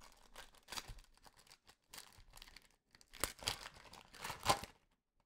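Trading-card pack wrapper crinkling and tearing as it is opened and handled, in irregular faint rustles, loudest about three and four and a half seconds in.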